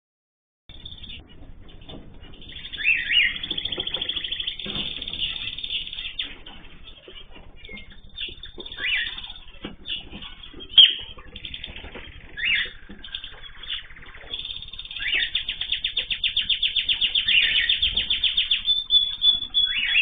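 Small cage birds chirping and trilling, with fast runs of high notes that swell twice, after a short silent gap at the start. A single sharp tap sounds about halfway through.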